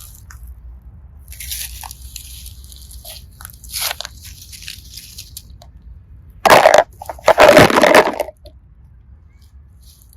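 Slime being squeezed and handled, with soft crackling squelches in the first few seconds. Two loud, crunchy squishes come about six and a half to eight seconds in.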